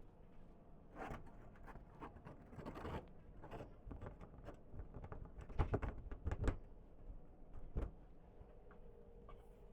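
Irregular knocks, clicks and rustles of things being handled, the loudest few knocks about two thirds of the way through, over a low steady hum.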